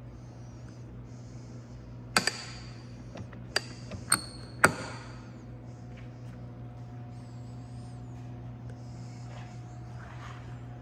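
A few sharp metallic clicks and clacks over about two and a half seconds as the Dodge Viper's chrome fuel filler cap and flip-up fuel door are closed, the last one the loudest. A steady low hum runs underneath.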